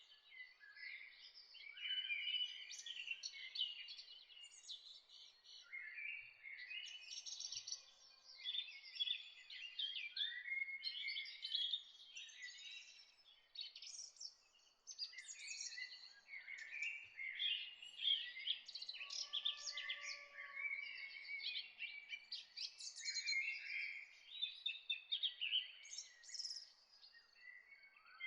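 Many songbirds chirping and trilling at once, a busy, overlapping dawn chorus over a faint background hush.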